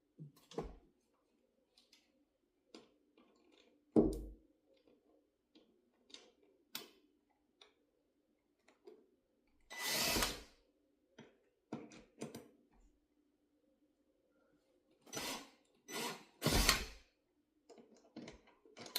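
Drill driving a drywall screw into a blinds mounting bracket in three short bursts, among clicks and knocks of handling the bracket and screws, with one sharp knock about four seconds in.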